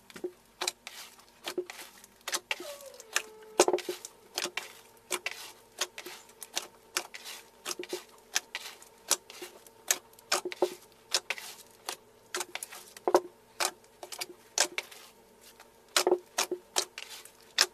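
Slime being kneaded and poked by hand, giving irregular sharp crackling pops and clicks, several a second.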